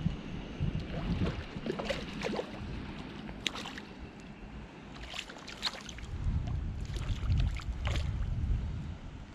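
Hooked trout splashing at the water's surface as it is reeled in to the bank, a handful of short splashes. Low wind rumble on the microphone in the second half.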